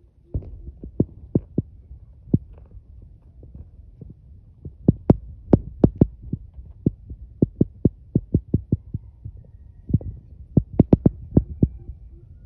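An irregular series of sharp taps and knocks, some in quick clusters, over a steady low rumble.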